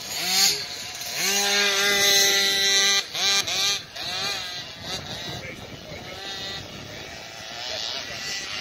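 KTM 65, a small two-stroke motocross bike, revving high with its engine note rising and falling. The throttle is shut sharply about three seconds in and blipped a few times, then the bike runs on more quietly as it moves away.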